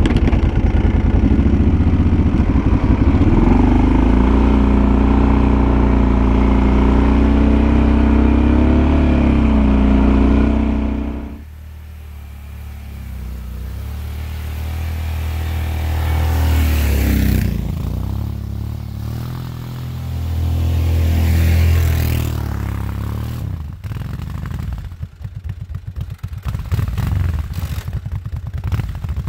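Kawasaki Brute Force 750 ATV's V-twin engine running under load while plowing snow. It is loud and close at first, with the engine note rising and falling. After a sudden drop it swells twice as the quad comes nearer, and a rapid clattering runs through the last few seconds.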